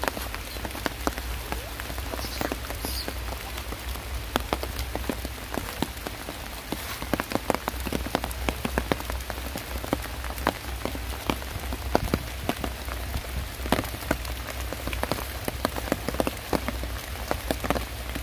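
Rain falling on an umbrella held just overhead: a steady hiss of rain with many irregular, sharp drop hits on the fabric close by.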